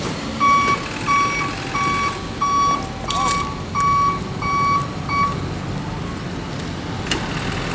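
Dump truck's reversing alarm beeping, about eight even beeps at roughly one and a half a second, stopping about five seconds in, over the truck's running engine as it backs up.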